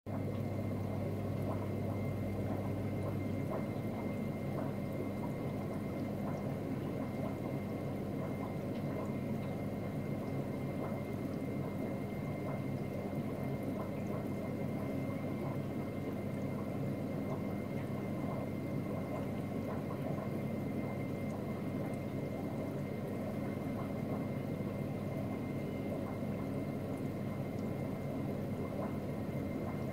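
Aquarium water circulation: a steady wash of moving water from the tank's pump, with a constant hum. A deeper hum drops away a few seconds in.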